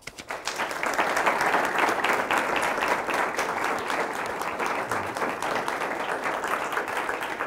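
Audience applauding: many people clapping at once, starting suddenly and holding steady.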